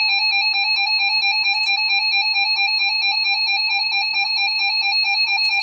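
Emergency Alert System attention signal: a loud two-tone alarm held steady, announcing that an emergency alert message follows.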